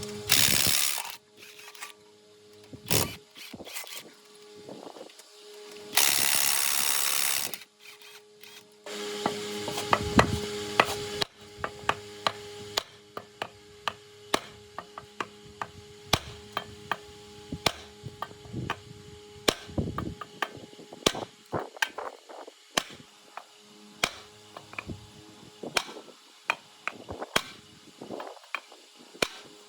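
Workshop hand-tool work: a long series of sharp taps and knocks at an uneven pace, with one short loud burst of noise about six seconds in, over a faint steady hum.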